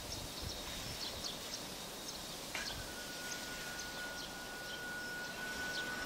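Outdoor winter ambience: a steady background hiss, with scattered short high bird chirps. About halfway through, a steady high tone starts and holds to the end.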